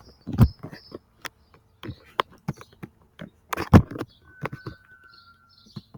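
Scattered knocks and taps of things being handled, with faint high bird chirps and one short steady whistle-like tone about four and a half seconds in.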